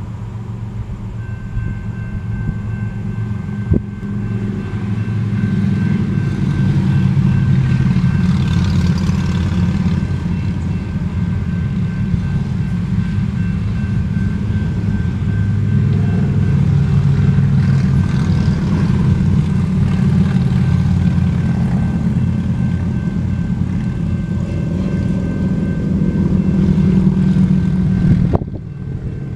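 Railroad crossing warning bell ringing steadily, starting about a second in as the crossing signals activate. A loud low rumble runs underneath, swells after a few seconds and drops off sharply near the end.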